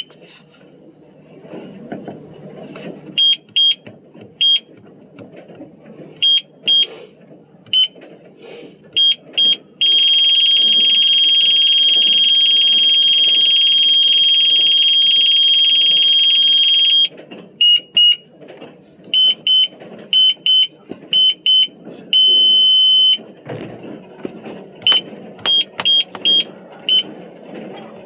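Electronic beeper sounding. Short high beeps come singly and in quick pairs and clusters, one long unbroken beep lasts about seven seconds in the middle, and a shorter held beep follows a few seconds later.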